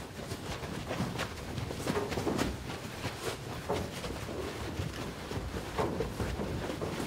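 Irregular scuffs and soft footsteps of a group of people shuffling together on a dirt floor.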